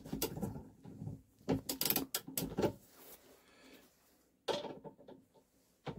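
Ratchet wrench clicking in short irregular runs, with a few small metal knocks, as a diesel fuel injector's nozzle nut is tightened down. The clicks bunch up about a second and a half in, then two single knocks follow later.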